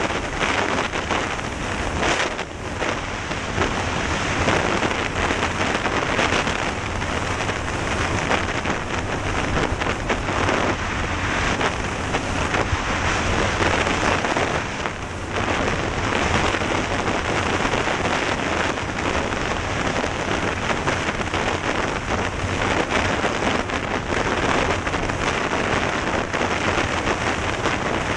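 Heavy wind rush buffeting a helmet-mounted camera's microphone while riding fast on an off-road vehicle, with the engine running underneath. The noise dips briefly twice.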